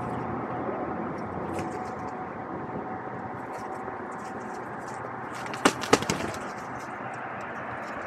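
Steady outdoor hum of distant traffic, broken about five and a half seconds in by a quick cluster of three or four sharp knocks and clacks.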